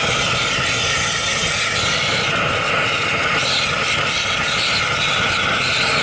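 Blowtorch burning with a steady hiss, preheating the hot bulb of an HSCS Red Star hot-bulb semi-diesel tractor before a start.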